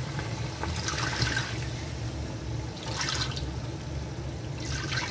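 Water being poured into the cooking pan with the marinated chicken.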